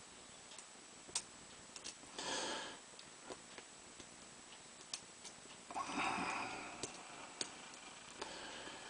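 Scattered small sharp clicks of a lock pick and tension tool working the pins of a Mul-T-Lock G55 padlock, with two short breathy sniffs about two and six seconds in.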